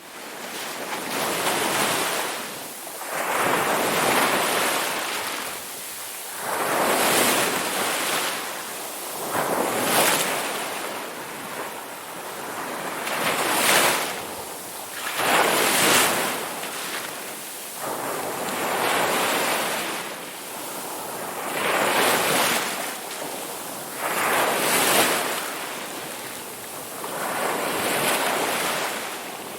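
Ocean waves breaking on a shore, one surge after another every two to three seconds, each swelling into a rush of hiss and falling back.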